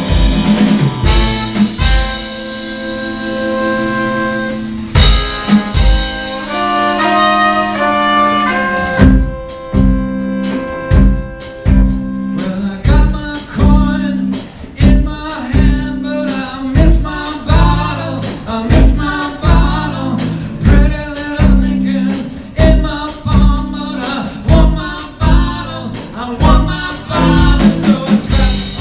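Live rock band with horns, violin and guitars playing. Held brass notes open the passage, then the drums come in with a steady beat about nine seconds in, and a singer joins a few seconds later.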